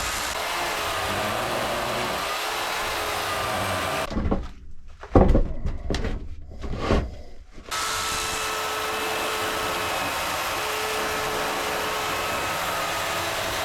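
Chainsaw running steadily while milling a walnut log. About four seconds in it drops out for a few seconds, with a few knocks and thuds, then runs steadily again.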